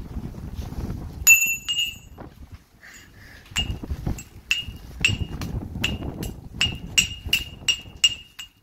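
Repeated sharp strikes on a ringing metal object, each with the same bright bell-like tone. They start as a few scattered hits and settle, about three and a half seconds in, into an even run of about three strikes a second.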